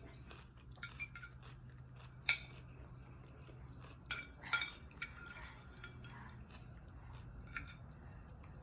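Cutlery clinking and scraping against a dish during a meal: a few separate sharp clinks, the loudest about two seconds in and a small cluster around four to five seconds, over a faint steady hum.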